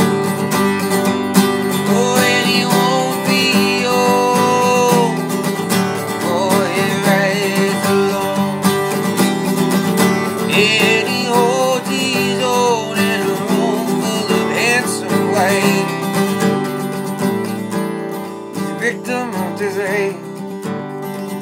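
Steel-string acoustic guitar strummed in a steady rhythm as a song accompaniment. A man's voice sings long, wavering held notes over it at several points.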